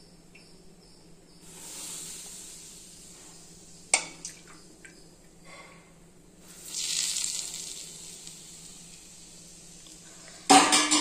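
A steel ladle scooping hot cooking oil from an aluminium kadai and pouring it out, with a soft hiss of pouring, a single clink of the ladle about four seconds in, and a louder hissing pour a few seconds later. A louder clatter comes near the end.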